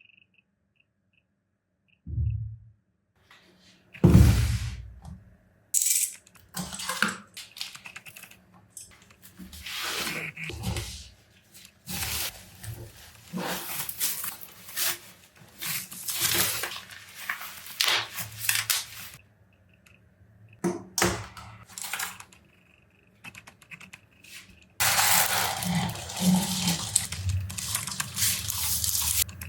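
A keyboard's packaging being opened and handled: irregular rustling and tearing with knocks and a loud thump about four seconds in, and a denser spell of rustling near the end.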